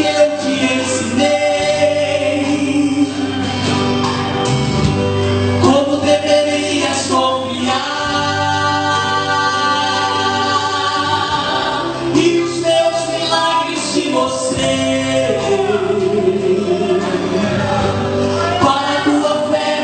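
Gospel song: voices singing together in held, sustained notes over steady instrumental backing with a bass line.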